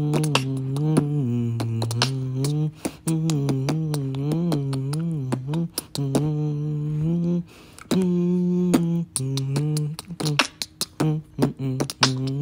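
Beatboxing: a low hummed bass line that slides from note to note, with sharp percussive clicks over it. The bass drops out briefly several times, most clearly about halfway through and in the last few seconds.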